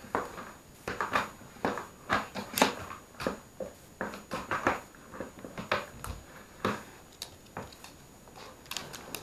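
A spaniel sniffing in short, irregular snuffles at the gap under a cupboard, nosing for a biscuit lost underneath.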